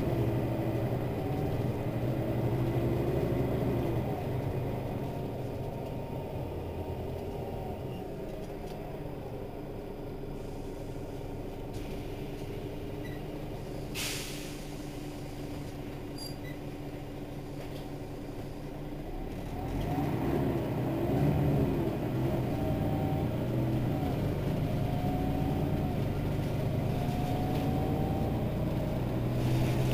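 Mercedes-Benz Citaro city bus's diesel engine running, quieter through the middle and then growing louder from about twenty seconds in, with its pitch rising and falling. About fourteen seconds in there is one short, sharp hiss of air.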